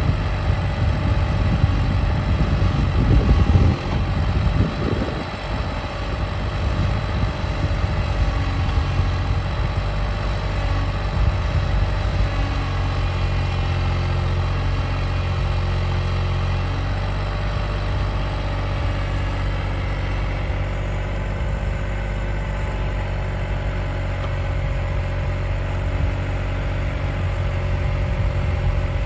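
Cat 303.5 mini excavator's diesel engine running steadily, louder and rougher for a moment about three to four seconds in.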